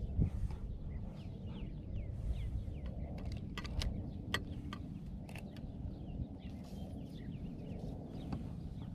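Birds chirping over and over with short falling notes, above a low steady rumble, with a few sharp clicks near the middle.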